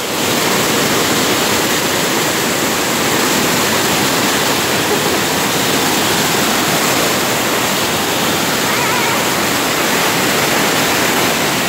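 Small waterfall pouring over rocks and splashing onto a person sitting beneath it. It is a steady, loud rush of water close to the microphone.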